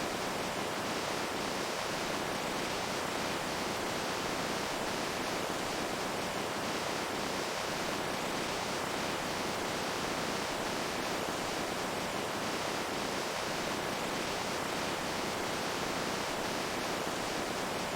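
Running water making a steady, even rushing hiss that does not change.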